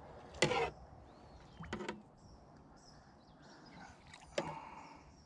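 Hooked smallmouth bass splashing at the side of a kayak: three short, sharp splashes, about half a second, just under two seconds and about four and a half seconds in.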